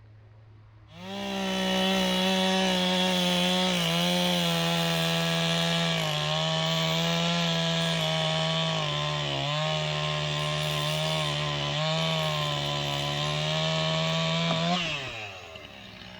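Two-stroke chainsaw running at full throttle through a cut, its pitch dipping a few times as the chain loads in the wood. It comes on about a second in and winds down near the end.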